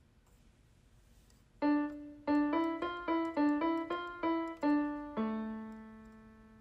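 Solo piano music: after a quiet start, a quick run of about a dozen single notes begins about a second and a half in, ending on one held note that slowly fades.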